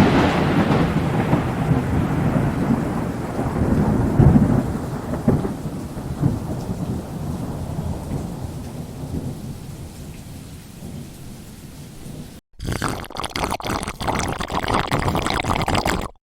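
Thunderclap fading into a long, slowly decaying rolling rumble with rain. About twelve seconds in it cuts off briefly, and a separate crackling stretch of noise follows, stopping abruptly near the end.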